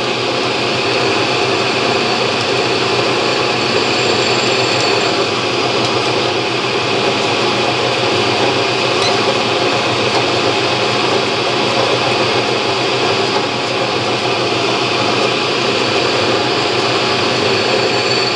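Drill press running steadily while a center drill is fed into a cast indexing wheel, drilling the last of its 72 evenly spaced holes.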